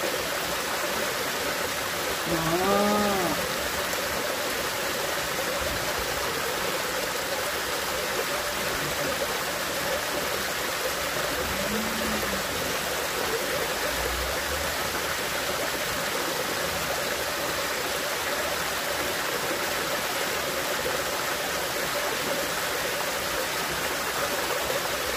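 Creek water running steadily and pouring over a small drop into a muddy pool. A brief hum-like voice sound rises and falls about three seconds in.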